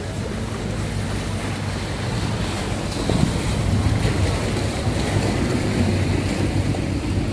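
A water bus engine drones steadily under the rush of water and wind buffeting the microphone. From about three seconds in it grows a little louder as a wooden water taxi passes close by, churning up a wake.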